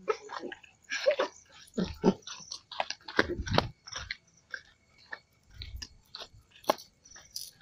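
Irregular crunching and scuffing of footsteps on a dirt path, with the rubbing and knocking of a handheld phone, while walking small dogs on a leash.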